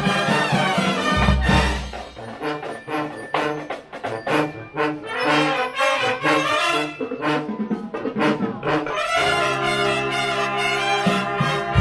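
A drum and bugle corps playing: brass bugles in short, punchy notes over a drumline, then a held brass chord about nine seconds in. Heavy drum hits come about a second in and again at the end.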